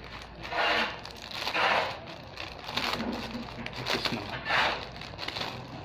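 Thin clear plastic wrapper of an N95 mask crinkling as it is handled and opened, in several short irregular rustles.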